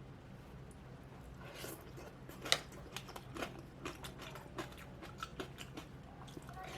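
Close-up eating sounds of a chopsuey of stir-fried vegetables: irregular crisp bites and crunchy chewing, starting about a second and a half in, with the loudest crunch about midway, over a faint steady low hum.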